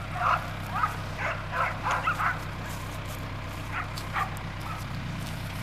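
A dog yipping and whining in short, repeated calls, over a steady low hum.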